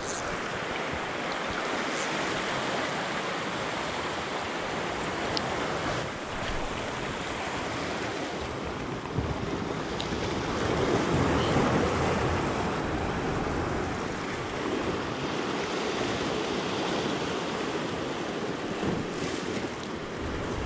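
Surf washing over shore rocks: a steady rush of breaking waves that swells louder a little past halfway, with a few faint clicks.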